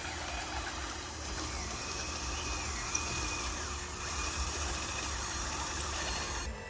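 Radio-controlled truck's small electric motor and drivetrain running steadily with a whirring hiss, cutting off suddenly near the end.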